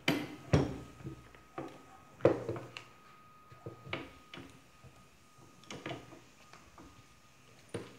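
Metal clunks and clicks of coil spring compressor clamps knocking against a car strut's coil spring as they are fitted on, in a handful of separate knocks, the loudest a little over two seconds in.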